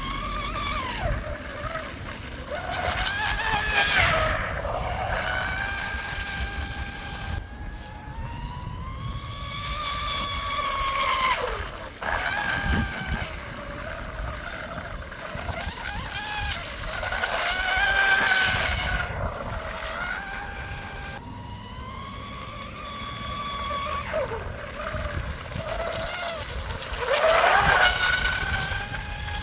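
Electric RC tunnel-hull boat running at speed on its de-tongued, sharpened propeller: a high motor whine that rises and falls in pitch with the throttle, with the hiss of the hull and spray. It comes loudest in four passes, its pitch dropping each time it goes by.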